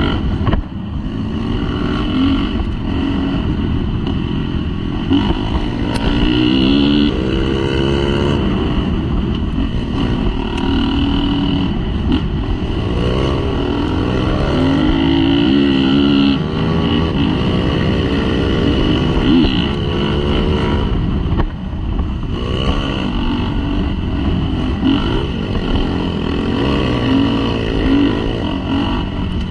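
Dirt bike engine under way, heard close up from the bike itself, its pitch climbing and dropping again and again as the throttle is opened and eased off through the ride.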